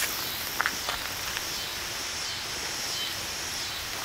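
Steady outdoor background noise with a high, wavering drone above it, and a few faint clicks in the first second and a half.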